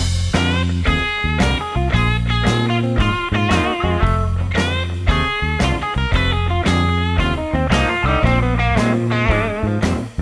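Background music: guitar-led rock with a steady drum beat and a heavy bass line.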